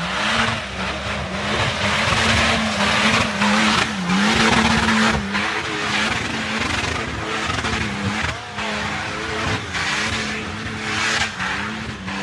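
Off-road 4x4 engines revving hard under load, the pitch rising and falling as the vehicles plough through deep mud. Spinning tyres throw mud with a loud hiss and spatter in surges.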